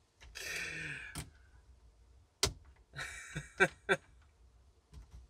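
A man's breathy sigh, then a few sharp clicks of the Jeep Grand Cherokee's power mirror switch as the side-to-side direction is tried. No mirror motor runs, because the mirror's left-right motor has failed.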